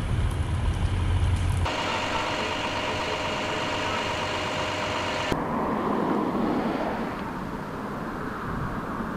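Low wind rumble on the microphone. Then, about two seconds in, the steady hum of idling fire engines, with several fixed tones. From about five seconds in comes the even, noisy sound of a distant helicopter's rotor.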